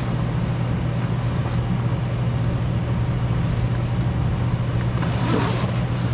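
A steady low hum throughout, with the rustle of a jacket zipper and fabric as the coat is zipped up about five seconds in.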